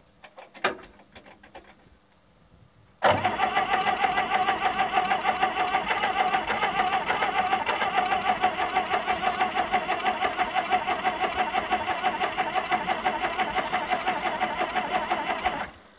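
Electric starter cranking an old McCormick tractor's diesel engine. The cranking begins about three seconds in with a fast, even pulsing, runs for about thirteen seconds without the engine catching, and cuts off suddenly. The diesel won't fire because air has got into its fuel system.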